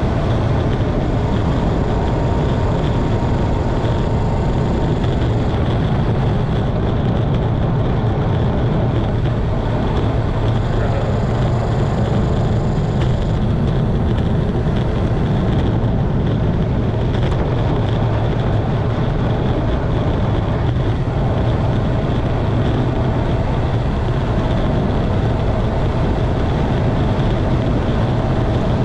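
Steady, loud wind rush buffeting the camera microphone on a bicycle coasting downhill at around 35 mph.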